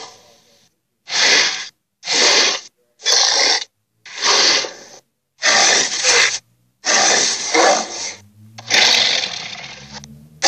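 A creature sound effect: about seven short, breathy hissing snorts, one roughly every second, with brief gaps between them.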